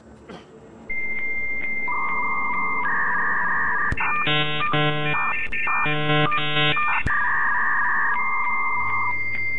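Synthesized electronic beeps and held tones standing in for a character's speech: a steady high beep starts abruptly about a second in, followed by lower held tones. In the middle comes a fast run of pulsing chord-like tones, and held tones return near the end.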